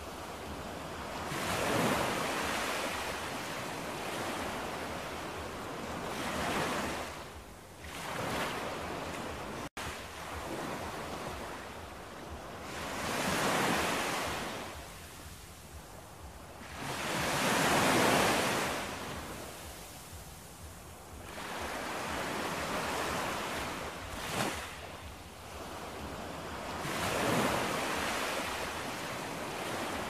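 Sea waves surging in and washing over shoreline rocks, the rush of surf swelling and ebbing in about six surges.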